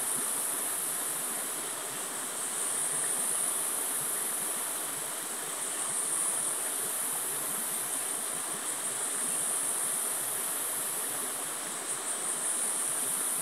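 Rainforest insect chorus, a high shrill drone that swells and fades every few seconds, over a steady rush of flowing river water.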